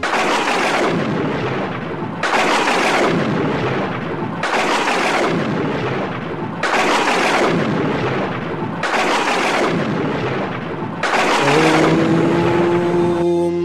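A recorded crashing sound effect from the theme show's soundtrack, repeating six times about two seconds apart. Each crash comes in sharply and fades out within about a second.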